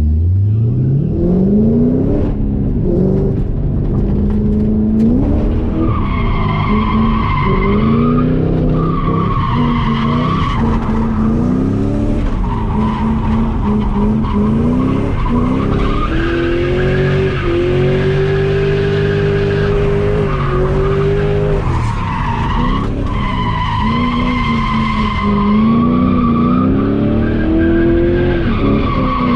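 Ford Mustang GT's 4.6-litre three-valve V8, heard from inside the cabin, revving up and falling back again and again through a drift run. The tyres squeal loudly in long stretches, strongest about six to eleven seconds in and again from about twenty-two seconds in.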